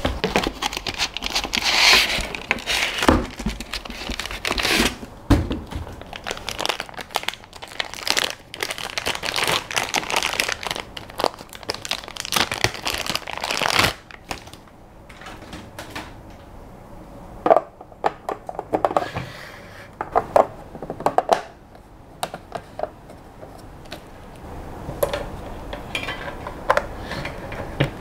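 Plastic packaging crinkling and rustling as parts are unpacked by hand, dense through the first half. Later, quieter handling with scattered clicks and knocks.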